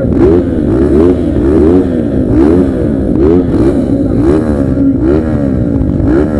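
Several motocross motorcycle engines revving, their pitch climbing and dropping back over and over, about twice a second.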